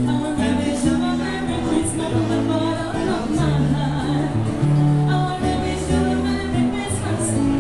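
Live band music: a Roland keyboard playing held bass notes that change every second or so, with acoustic guitar and a woman singing.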